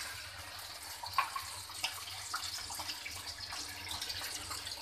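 Water just poured into a pan of hot oil with tempering mustard seeds, curry leaves and green chillies, simmering with a soft sizzle and scattered small pops and crackles.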